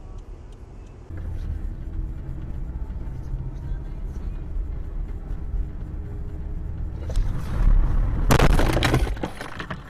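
Steady engine and road rumble heard from inside a moving car. About seven seconds in comes a loud, rough burst with several sharp knocks, lasting about two seconds, then it dies down.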